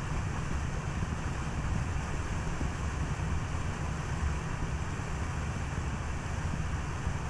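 Steady road and wind noise from a Skoda Kodiaq driving along, a low rumble with a softer hiss above it and no distinct events.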